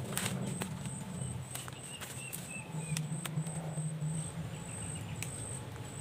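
Leaves and twigs crackling and snapping as a sapling's branch is stripped by hand, a few sharp clicks. Behind it, an insect keeps up a high pulsing chirp about three times a second, a bird gives a short run of notes about two seconds in, and a low hum runs underneath.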